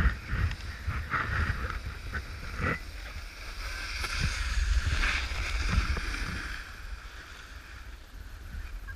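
Snowboard sliding and scraping over packed snow, with wind rumbling on a GoPro microphone in its housing. A few knocks come in the first few seconds, and the scraping hiss is loudest around the middle.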